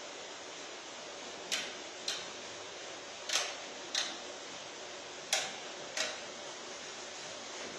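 Sharp clicks in pairs about half a second apart, one pair every couple of seconds, over a steady hiss.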